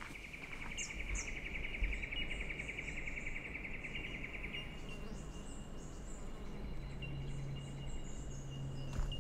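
Bushland ambience: an insect trills in a fast, even pulse and stops about four and a half seconds in, while small birds chirp high and a thinner insect note runs on. A low hum sits underneath.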